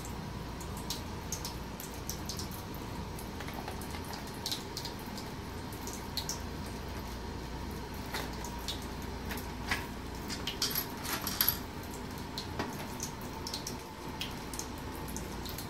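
Thin stream of water running from a bathroom faucet, with scattered light clicks and taps as a kitten's clear plastic cone collar bumps the faucet and sink and the metal tag on its collar jingles. A quick run of taps about two-thirds of the way through is the loudest part.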